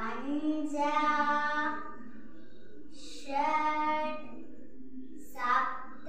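A child singing unaccompanied in three long, held phrases with short pauses between them.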